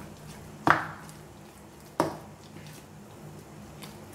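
A spoon stirring thick oats-and-semolina idli batter in a stainless steel pot, clinking sharply against the pot's side: a loud clink under a second in and another about two seconds in.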